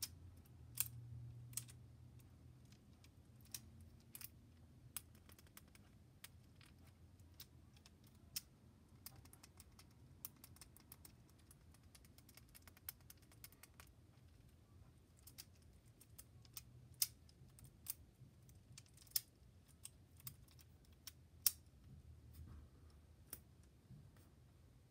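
Irregular sharp plastic clicks from the buttons of a small fidget toy being pressed, a few of them much louder than the rest.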